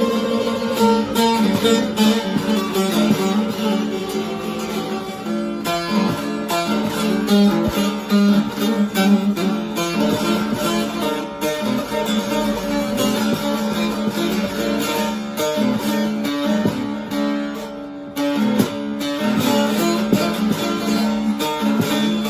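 Divan bağlama with a mulberry bowl and spruce top being played solo: a quick stream of plucked notes over a steady ringing drone.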